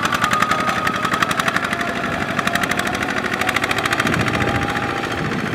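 Two-wheel tractor's single-cylinder diesel engine chugging rapidly and evenly under load as it hauls a loaded trailer through deep mud, with a thin whine running above it.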